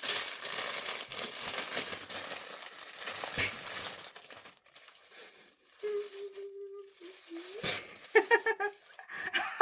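Plastic packaging crinkling and rustling as items are pulled from a parcel bag, dense for the first four and a half seconds and then dying down. A short vocal sound follows near the end.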